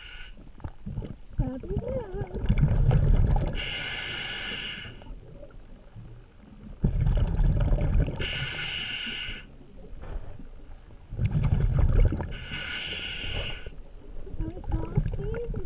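Scuba diver breathing through a regulator underwater, three breaths about four and a half seconds apart. Each is a low bubbling rumble followed by a hiss from the regulator.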